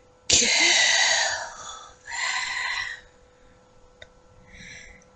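Breathy whispering with no voiced tone: one long whispered phrase starting about a third of a second in, a shorter one about two seconds in, and a faint whisper near the end. A small click about four seconds in.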